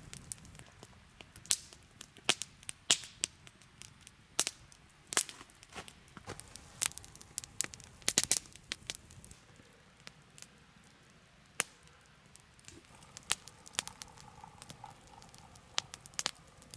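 Wood campfire crackling, with irregular sharp pops and snaps, some loud, over a low hiss of burning.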